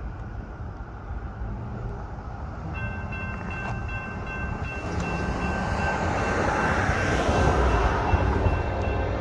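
Railroad grade-crossing warning bell starts ringing about three seconds in, a repeating high ring, as the crossing signals activate for an approaching train. Under it a rumble builds and peaks near the end.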